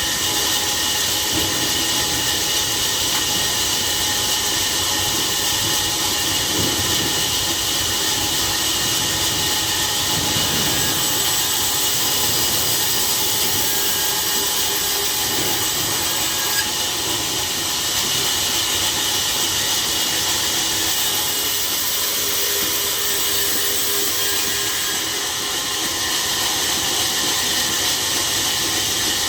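Sawmill machinery running steadily: a loud, even hiss, strongest in the high range, with a few faint steady tones underneath.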